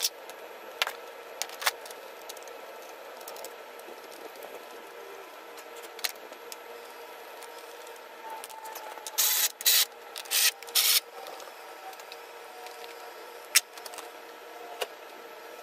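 Rubbing and scraping noises with scattered sharp clicks, with a cluster of louder scrapes about nine to eleven seconds in; no engine is running.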